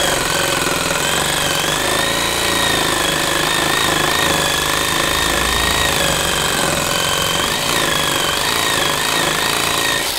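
DeWalt 18-volt cordless reciprocating saw cutting through an old rotten wooden gate post, its motor whine wavering up and down in pitch as the blade works. The saw cuts off suddenly at the very end.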